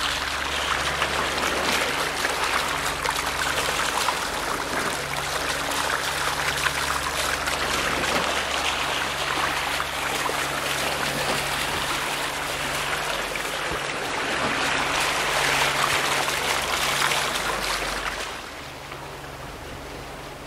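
Water rushing and trickling along a sailing catamaran's hulls as it moves slowly through a calm sea, with a low steady hum underneath. The water noise drops away near the end.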